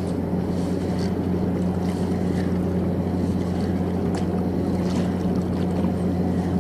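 Steady low engine hum with no change in pitch, over wind noise on the microphone.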